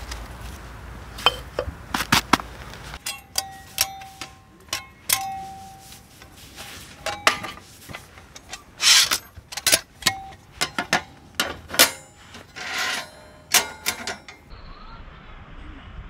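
A few hard knocks of a stone striking a wooden stake, then a run of light taps and metallic clinks as metal camp gear is handled, some with a short ringing tone.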